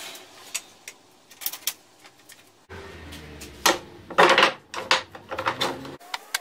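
Cut pine boards knocking and clattering against each other and the wooden workbench as they are stacked and squared up by hand: a run of sharp wooden knocks, loudest a little past the middle.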